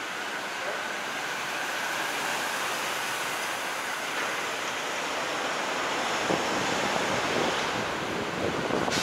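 Steady rushing wind noise on the microphone of a camera mounted on the bonnet of a moving car, mixed with road noise and growing a little louder toward the end.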